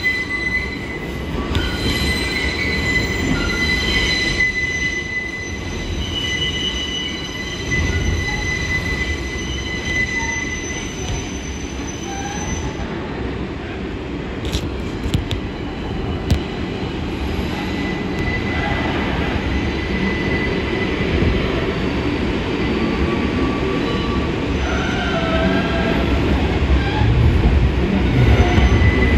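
R62 subway car running through a tunnel curve, its wheels squealing against the rails in a thin, steady high whine over a heavy low rumble. The squeal dies away for a few seconds about halfway through, when a few sharp clicks are heard, then returns and grows louder near the end.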